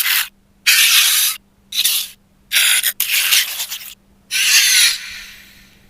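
Edited creature sound effects: a run of about six short, raspy hissing bursts, the last one trailing off.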